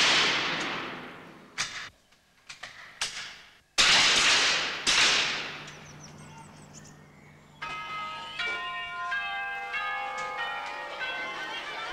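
Rifle shots fired prone on an indoor range, each sharp crack echoing and dying away over a second or two: one about four seconds in and another a second later, with a few small clicks between. About two-thirds of the way in, a run of ringing, bell-like pitched notes begins.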